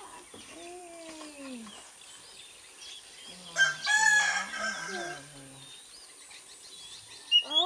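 A rooster crowing once, loudly, for about a second a little before halfway through, with softer calls before it and a short burst of calls near the end.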